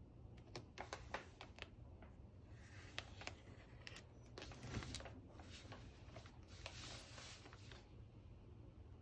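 Faint light clicks and scratchy rustling of a ceramic bowl being handled on paper and a pen drawing around its rim on a scrap test surface. A quick run of small clicks in the first two seconds, then longer stretches of scratching that stop near the end.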